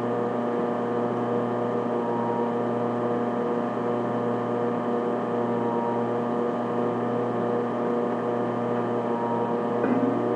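Steady hum holding several constant tones at once, with no speech over it. Right at the end a rising tone begins.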